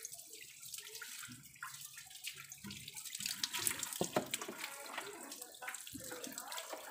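Water from a garden hose running and splashing onto a motorcycle and the wet floor, a steady hiss with scattered splashes and drips.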